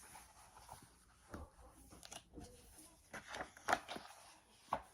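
Soft, scattered knocks and rustles of handling, loudest about three and a half seconds in.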